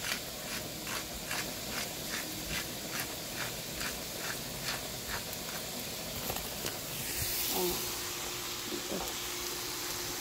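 Hand-twisted pepper grinder crunching peppercorns in even strokes, about two and a half a second for roughly five seconds, then stopping. Food sizzles in a frying pan underneath.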